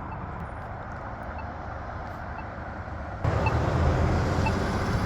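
Polara iNS accessible pedestrian push button's locator tone, a short beep about once a second, during the wait phase. It plays over steady road traffic that grows louder a little past three seconds in as vehicles move through the intersection.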